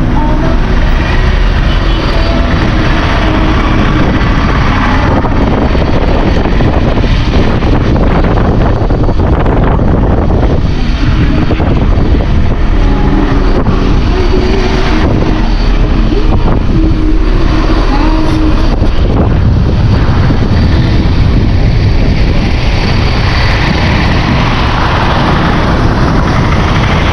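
Vehicle on the move, a loud steady road and engine noise with wind buffeting the microphone.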